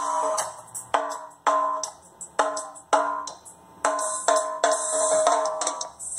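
Percussive music with sharp drum hits played through a Bomber DBA200 80 W RMS 8-ohm compression driver on a short horn, fed by an amplifier through a series capacitor. The sound is thin and midrange-heavy, with almost no bass.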